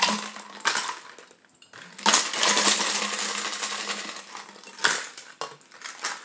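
Water poured from a plastic bottle into a metal-rimmed insulated tumbler: a steady rush of pouring for about two and a half seconds from around two seconds in, with sharp clinks of the bottle or ice against the tumbler before and after.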